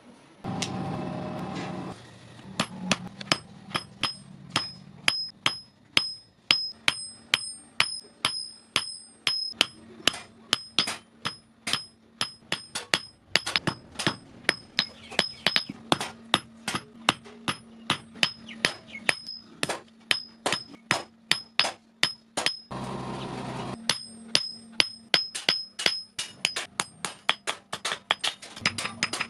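Hammer blows on steel on an anvil while forging a small knife, about two strikes a second, many with a high metallic ring. A short steady rushing noise sounds near the start and again about 23 seconds in.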